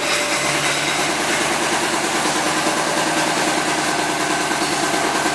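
Supercharged BMW E93 M3's 4.0-litre V8 idling steadily through an aftermarket ESS exhaust system.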